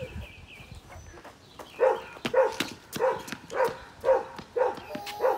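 A dog barking repeatedly, about two barks a second, starting about two seconds in.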